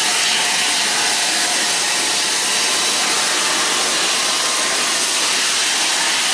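Steam hissing loudly and steadily from LNER A4 Pacific steam locomotive 4464 Bittern as it wheezes away on departure, a continuous rush of escaping steam with no beat of exhaust beats.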